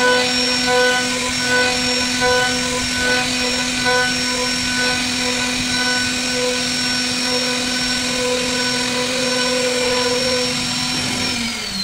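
CNC router spindle running with a steady whine as its bit carves a hardwood cot panel. Several mid-pitched tones pulse at an even rate, and near the end the whine drops in pitch.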